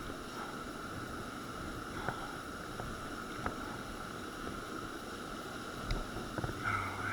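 Steady rush of river whitewater around a kayak, with a few faint knocks, the loudest about two, three and a half and six seconds in.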